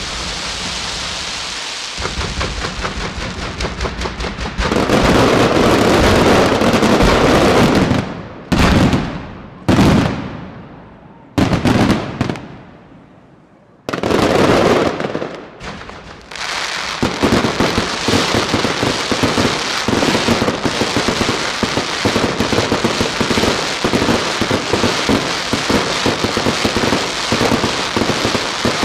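Aerial fireworks display: dense crackling, then a loud barrage of bursting shells, then four separate heavy bursts, each trailing off slowly. From just past halfway on, a rapid, continuous run of bangs and crackling stars.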